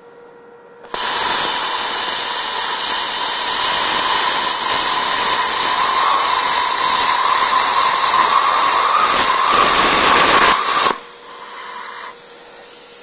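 Longevity 42i plasma cutter cutting through thick-wall 4130 chrome-moly steel tube: a loud, steady hiss with a whine in it starts suddenly about a second in and cuts off sharply about ten seconds later. After it cuts off, a quieter air hiss from the torch carries on.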